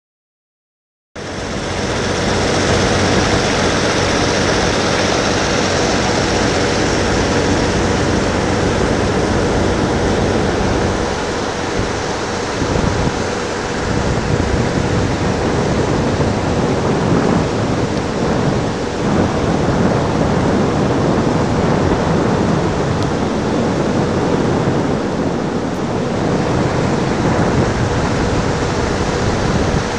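Loud steady rushing noise of wind on the microphone, starting abruptly about a second in, with a faint steady machinery hum beneath.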